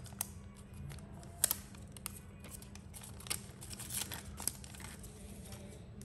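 Hands handling a small plastic USB-C power adapter and its packaging: faint rustling with a few sharp clicks, over a steady low hum.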